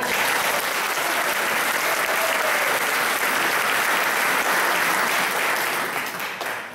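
Audience applauding steadily, tapering off near the end.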